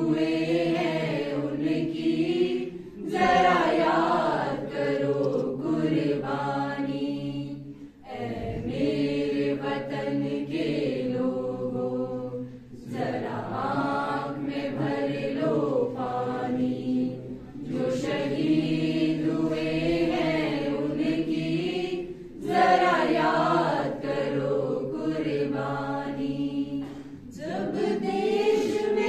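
A small mixed choir of young women and men singing a group song unaccompanied, in long held phrases with a short break every four to five seconds.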